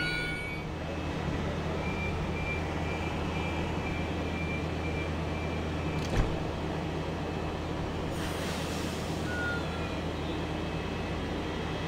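Sydney Trains Oscar (H-set) double-deck electric train standing at the platform, its equipment giving a steady low hum. A run of short high beeps plays, then a thud about six seconds in as the doors close, then a burst of air hiss around eight seconds in.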